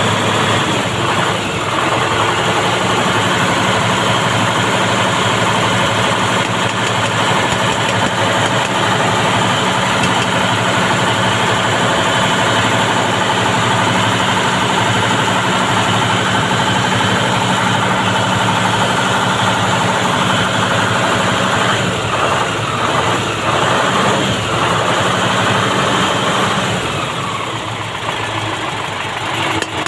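Vehicle engine idling steadily, heard close up from underneath the vehicle.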